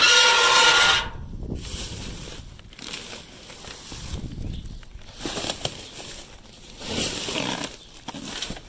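Rubbish being rummaged in a dumpster: bags and trash crinkling and rustling, with louder rustles about five and seven seconds in. It opens with a loud tone lasting about a second.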